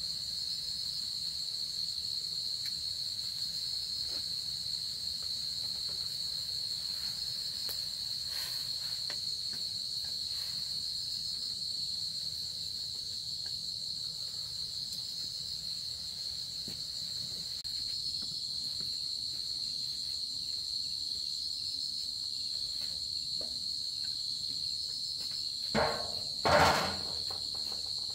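Crickets chirring in a steady, high-pitched chorus. Near the end there are two short knocks.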